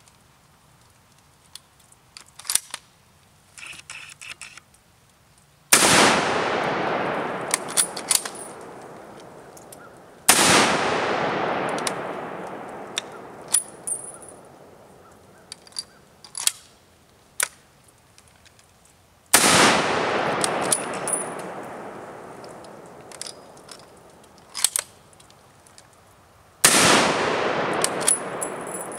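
Four shots from a 1903 Springfield bolt-action rifle, several seconds apart, each followed by a long echo that fades away over several seconds. Between the shots come small metallic clicks as the bolt is worked.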